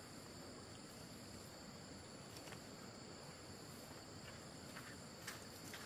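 Faint, steady high-pitched drone of insects chirring, with a few faint clicks.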